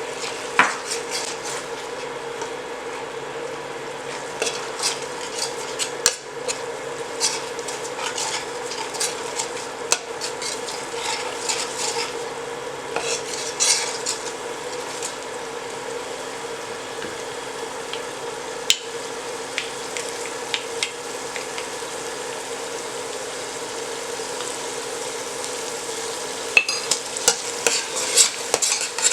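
Thai red curry paste frying in hot oil and coconut milk in a pan, sizzling steadily while a utensil stirs it, with frequent clicks and scrapes against the pan that get busier near the end.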